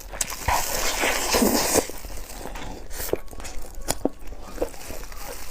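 Close-up eating sounds: a loud crackling crunch lasting about a second and a half, then scattered wet clicks and smacks of chewing.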